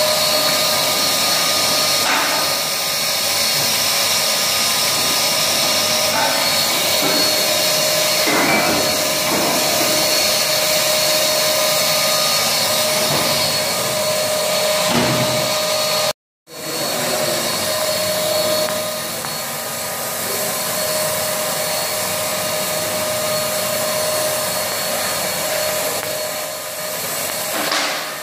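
Electric paint spray gun running, a steady blowing hiss with a motor whine as it sprays paint onto a steel pipe. The sound cuts out for a moment just past halfway and then carries on.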